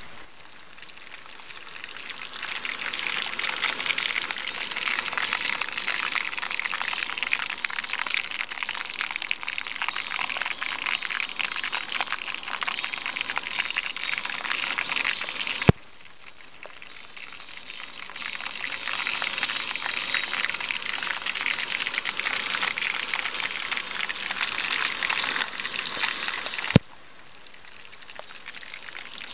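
Gearbox oil boiling in a saucepan full of steel padlocks, giving a dense, fizzing crackle. The sound builds up over a couple of seconds, then breaks off twice with a sharp click, dropping away and building again each time.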